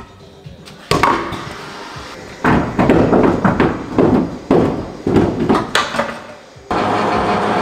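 Loud irregular metallic knocks and clatter of car rear-suspension parts and a wheel being unbolted and handled, denser in the middle. Steady music comes in near the end.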